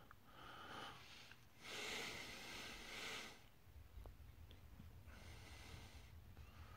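A man breathing heavily close to the microphone, with no words: three long breaths, the middle one, about two seconds in, the loudest.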